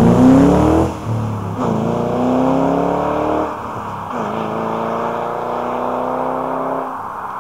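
2006 Mustang GT's 4.6-litre V8 through Magnaflow axle-back mufflers accelerating hard from a standing start, its pitch climbing through each gear, with upshifts of the five-speed manual about a second in, about three and a half seconds in and near the end. The sound grows fainter as the car pulls away.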